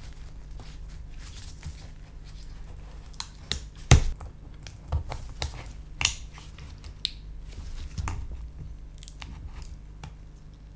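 Scattered clicks, scrapes and knocks of tools against a MacBook Pro's battery and case as a glued-in battery cell is worked loose from its adhesive, the loudest knock about four seconds in, over a low steady hum.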